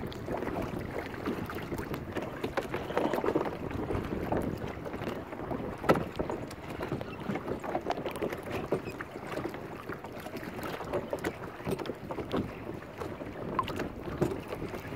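Water sloshing and splashing around a hand and landing net held at the surface, with wind on the microphone. There are many small irregular splashes and one sharper knock about six seconds in.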